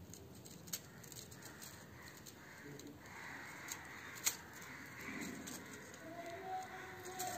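Faint handling sounds of thin wire being looped by hand around a plant stem and its support stick: light rustling with scattered small clicks, the sharpest one a little past the middle.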